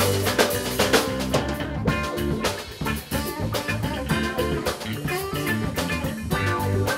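Live band playing: electric guitar, bass guitar and drum kit, with steady drum hits keeping the beat.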